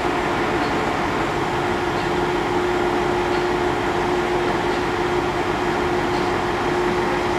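A heavy machine's engine running at a steady speed, with one steady humming tone over the engine noise.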